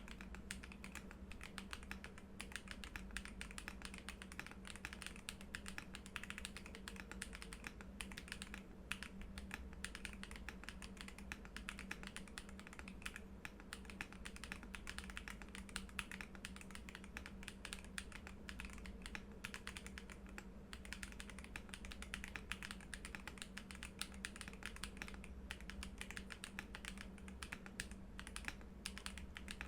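Typing on an EWEADN C65 mechanical keyboard with Matcha linear switches and dye-sub PBT keycaps: a fast, continuous stream of keystroke clacks, with a couple of short pauses.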